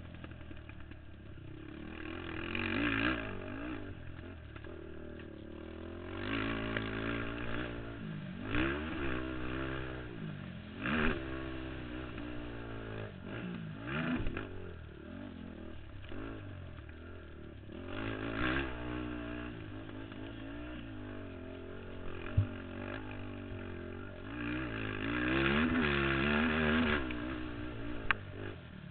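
Racing ATV's engine heard from a camera mounted on the quad, revving hard and easing off again and again, its pitch climbing as it accelerates and dropping as it slows. Two sharp knocks come in the second half.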